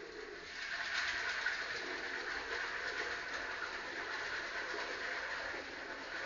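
Kitchen tap running steadily into a pot in the sink, the water splashing as a hand rinses grains in it; the flow gets louder about half a second in.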